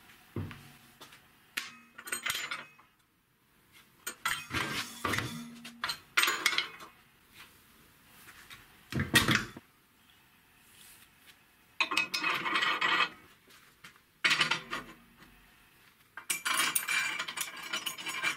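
Steel parts of a homemade hydraulic press frame being handled and fitted on a steel workbench: scattered clanks, clinks and scrapes as the channel crossbar and steel pins go into the uprights, with the loudest clank about nine seconds in. Near the end a continuous rasping sets in.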